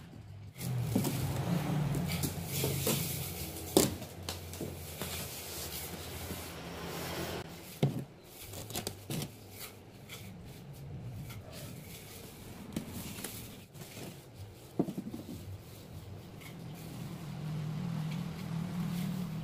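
Damp sand-cement mortar being dropped and scraped along a long metal-railed form on a work table: rubbing and scraping with a few sharp knocks, over a low hum that comes and goes.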